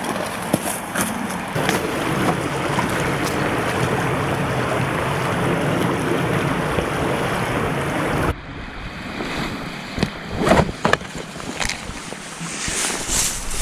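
Steady rush of a flowing river and wind for about eight seconds, then a sudden cut to quieter rustling and a few sharp clicks as a coil of rope is handled over a backpack.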